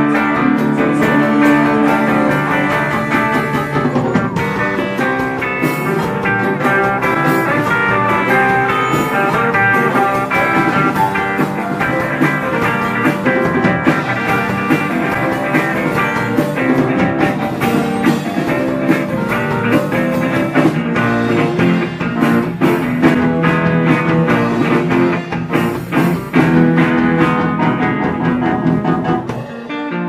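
Live psychedelic rock band playing: electric guitars, Vox Jaguar organ, bass and a drum kit. The sound thins out just before the end.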